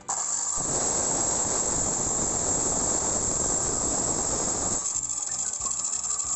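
Miter saw running, its spinning blade cutting through a wooden board with a steady, dense hissing whine. About five seconds in the cut ends and the sound thins to the motor running on.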